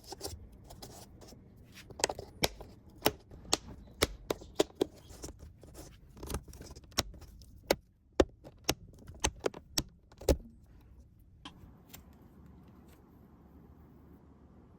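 Irregular sharp clicks and light taps of small hard parts being handled, a couple a second for about ten seconds, then only faint background hiss.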